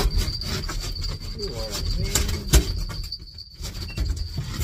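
Scattered knocks and thumps, the sharpest about two and a half seconds in, over a steady low rumble, with a thin high whine held throughout and faint voices in the background.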